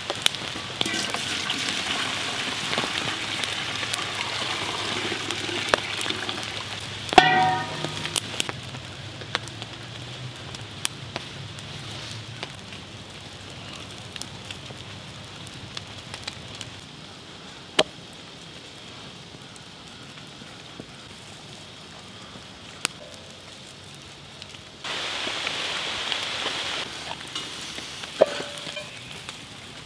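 Campfire crackling and popping under a steady hiss, with a ringing clank of a metal cookpot about seven seconds in. Near the end a sudden loud sizzle starts as raw beef is laid into a hot cast-iron Dutch oven, then fades.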